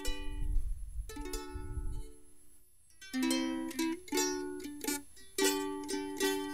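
Background music on a plucked-string instrument: a few ringing notes, a short pause about two seconds in, then a quicker, evenly repeating pattern from about three seconds in. A low rumble runs under the music for the first two seconds.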